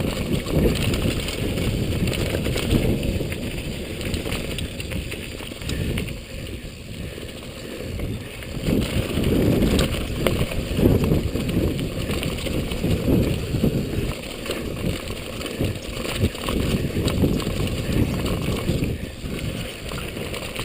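Mountain bike riding fast down a dirt trail: wind rumbling on the action camera's microphone in uneven gusts, with tyres rolling over dirt and loose rocks and small rattling knocks from the bike.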